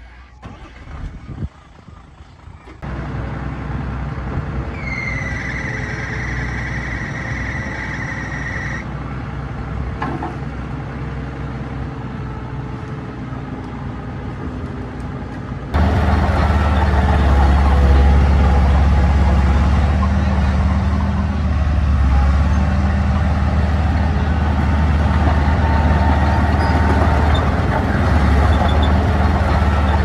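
Diesel engine of heavy earth-moving machinery running steadily, with a high steady whine for a few seconds around five to nine seconds in. About halfway through it changes abruptly to a louder, deeper engine drone.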